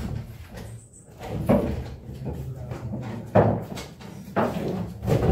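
Pool shot: sharp knocks of cue and balls striking on the table, the loudest about three seconds in.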